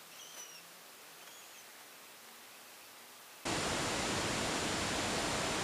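Faint background hiss with two or three faint short chirps, then about three and a half seconds in a much louder steady hiss with a thin high whine cuts in abruptly: recording noise or static.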